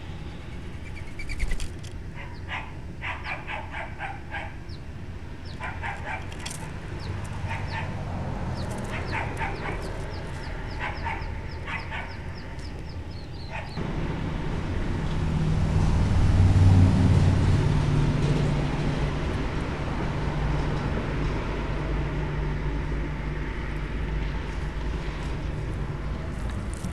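Outdoor ambience: short animal calls repeat and small birds chirp rapidly for about the first half. Partway through, a low rumbling noise comes in suddenly, swells and then eases off.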